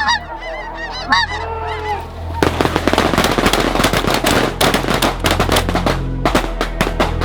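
Snow geese honking, a few high arching calls. About two and a half seconds in, music with a drum beat comes in and takes over.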